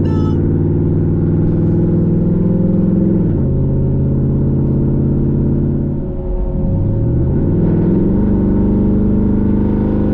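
Chevrolet Tahoe V8 through a new true-dual exhaust with two catalytic converters, heard loud from inside the cabin while driving. The note drops in pitch at an upshift about three seconds in. Around six seconds in it dips briefly, then climbs in pitch as the engine revs up, and then holds steady.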